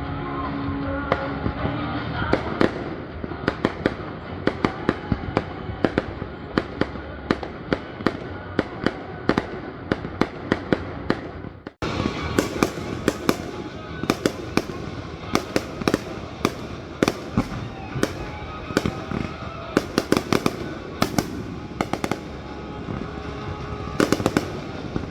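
Fireworks exploding in rapid, irregular succession, many sharp bangs close together. The sound cuts out for a moment about halfway through, then the bangs continue.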